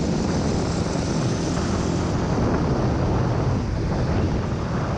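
Motorbike under way on an open road: a steady rush of wind over the microphone mixed with the engine's low running noise.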